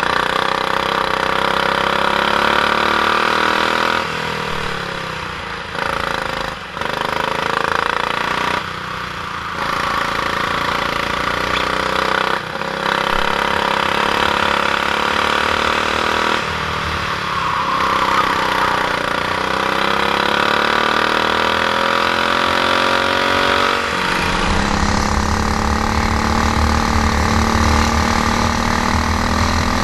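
Honda GX390 single-cylinder four-stroke kart engine racing, revving up and dropping off briefly every few seconds as the throttle is lifted and reapplied. About three-quarters of the way through it settles into a steadier, deeper drone.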